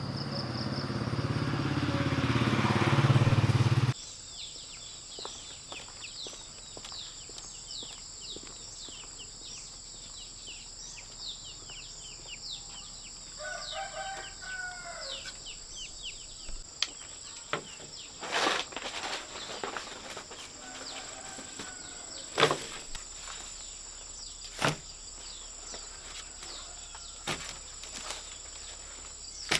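A small engine runs loudly for about the first four seconds and cuts off abruptly. Outdoor farm ambience follows: a steady high insect drone, many short bird chirps, a chicken call about 13 seconds in, and a few sharp knocks.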